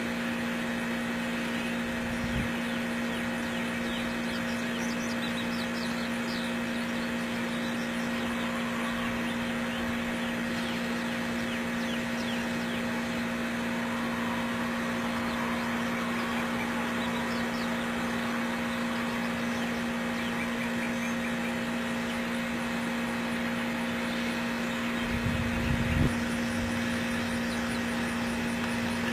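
A steady machine-like hum with a constant low tone and a few fainter higher tones, a few faint high chirps, and a short low thump near the end.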